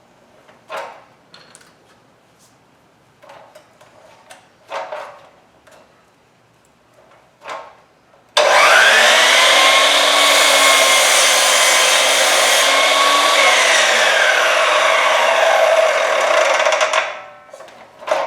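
Electric power saw cutting wood: the motor spins up with a rising whine about eight seconds in, runs loud and steady for several seconds, then winds down. A few short knocks of wood being handled come before it.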